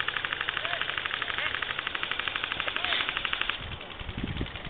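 Airsoft rifle firing a long burst on full auto, a fast even rattle of shots that stops about three and a half seconds in. A few low thuds follow.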